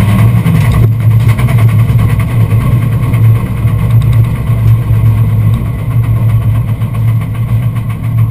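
BMW M3 race car's engine heard from inside the stripped, roll-caged cabin, running steadily at low revs as the car rolls slowly along. The higher part of the sound drops away about a second in.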